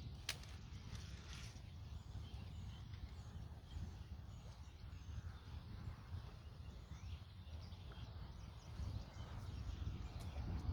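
Wind buffeting the microphone in a steady low rumble, with faint bird calls and a single sharp click just after the start.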